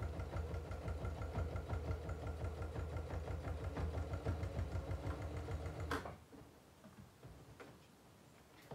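Singer Heavy Duty 4411 electric sewing machine running, stitching a patch onto a denim vest with a fast, even rhythm, then stopping with a click about six seconds in.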